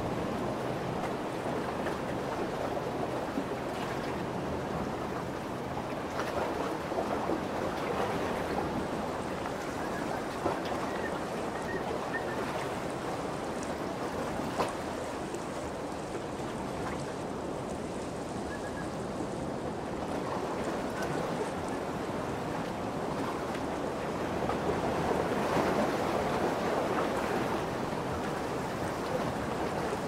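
Lake waves washing and lapping steadily, swelling a little near the end, with a faint low hum through the first half.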